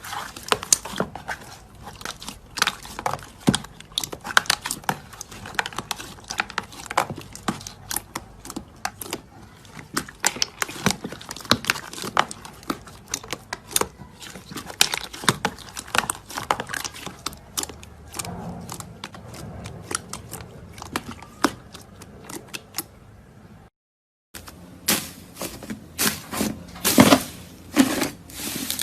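Crunchy slime being handled, giving dense, irregular crackling clicks and pops. The sound drops out for a moment a little before three-quarters of the way through, then comes back with louder bursts of crunching near the end.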